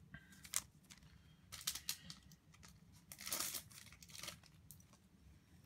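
A trading-card booster pack wrapper being torn open and crinkled in a few short bursts. The loudest tear comes about three and a half seconds in.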